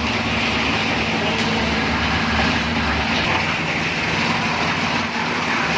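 Concrete mixer running steadily: an even engine hum under a dense, rough noise.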